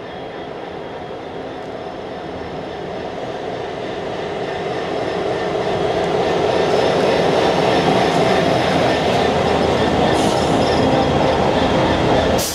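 A GB Railfreight Class 66 diesel locomotive, with its EMD two-stroke V12 engine, approaching and passing close alongside with its wheels running on the rails. The sound grows steadily louder over the first six seconds or so, then stays loud as the locomotive draws level.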